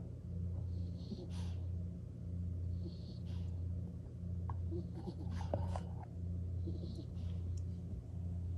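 Pet skunk snoring in its sleep, a soft breath about every two seconds, over a steady low hum.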